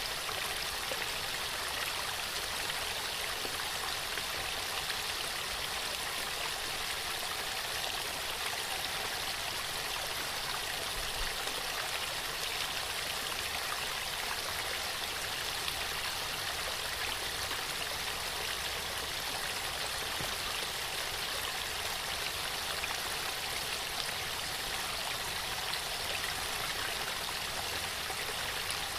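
Waterfall: steady rushing and splashing of falling water, even throughout.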